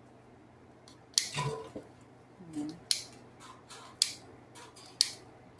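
Sharp plastic clicks from a seven-pattern hose spray nozzle being handled, a scattered series of separate clicks with a few bunched close together.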